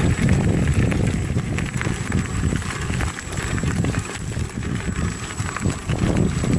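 Low rumbling with irregular knocks and jolts, like wheels rolling over rough forest ground, mixed with wind buffeting the microphone and a thin steady high whine.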